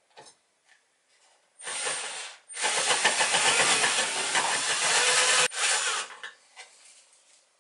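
Cordless drill with an 8 mm bit boring the mast-foot hole in a wooden model boat hull. A short burst comes about two seconds in, then about three seconds of steady drilling that stops abruptly, followed by a brief softer run.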